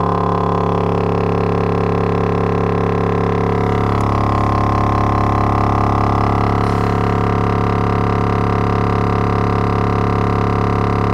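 Logitech Z5500 subwoofer driver, out of its enclosure and running in free air, playing a steady 35 Hz test tone, heard mostly as a droning buzz of higher overtones. The buzz shifts slightly about four seconds in.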